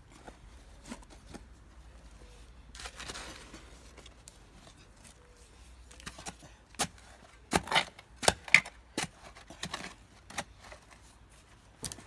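A long-handled spade digging into garden soil: after a quieter start, a string of sharp knocks and scrapes of the blade in the second half, irregularly spaced.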